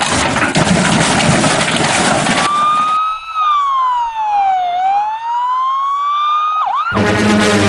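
A loud noisy rush for about three seconds, then a single siren wail that slides down in pitch and back up over about four seconds, with a quick dip just before it cuts off.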